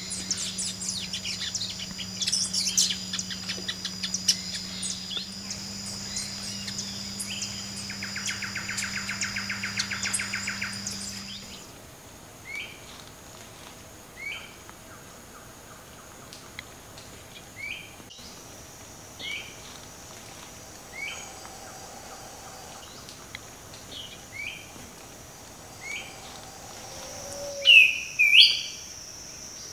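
Forest birds chirping over a steady high insect drone. After a cut, one bird gives a short call repeated about every one and a half to two seconds, and two louder calls come near the end.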